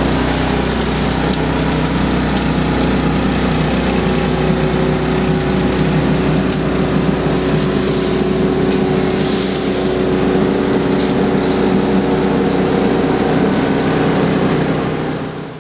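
Kōyō Engineering BS2000 truck-mounted vacuum sweeper running steadily, pulling air through its suction hose as the hose is drawn along a curb, with a few faint ticks. The sound drops away near the end.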